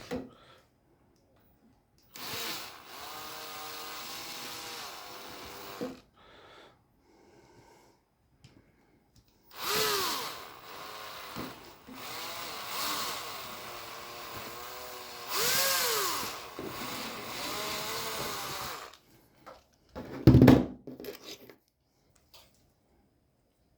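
Small handheld electric power tool running in two bursts, a short one and then a longer one, its motor pitch rising and falling as it speeds up and slows. A loud knock follows shortly after.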